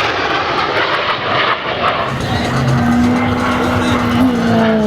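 Display aircraft flying past, its engine roar steady at first. Partway through a humming tone comes up, and near the end it starts to drop in pitch as the aircraft passes.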